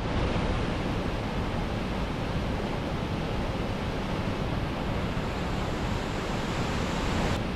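Whitewater creek rapids pouring over granite boulders: a steady, full rushing of water that starts suddenly.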